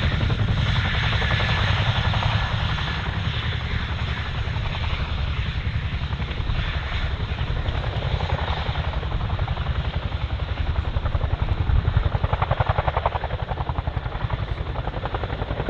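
Boeing Chinook tandem-rotor helicopter flying low and slow, its rotors beating in a fast, even pulse of blade slap that swells slightly near the end.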